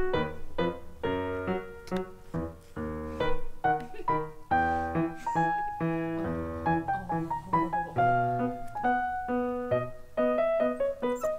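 Background piano music, a steady run of struck notes and chords.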